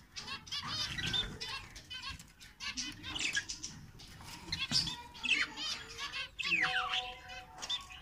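Budgerigars chattering in an aviary: a steady run of quick warbling chirps and squawks, with a few soft wing flutters.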